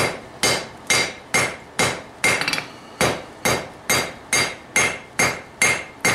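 Blacksmith's hammer striking a red-hot steel bar on an anvil, drawing out a taper: steady blows about two a second, each with a short metallic ring.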